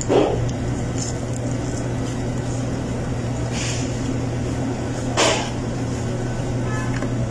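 Steady low hum of room air conditioning, with two short crunchy crackles, one at the start and one about five seconds in, from biting into and chewing crispy broasted chicken.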